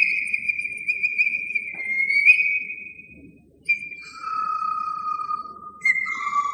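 Pan flute playing a slow melody. A long, high, breathy note is held with vibrato and fades out, then after a brief pause a few short notes drop to a lower held note.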